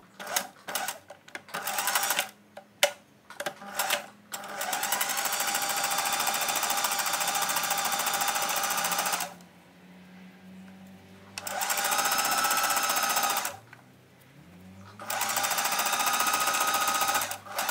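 Singer Heavy Duty 4432 sewing machine stitching through folded jute burlap: a few short spurts at first, then three longer runs of rapid needle strokes with pauses of about two seconds between them.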